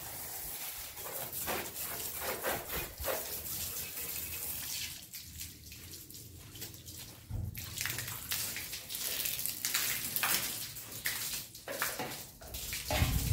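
Water from a garden hose pouring over a motorcycle and splashing onto a concrete floor, uneven and splashy, going quieter for a couple of seconds midway before picking up again.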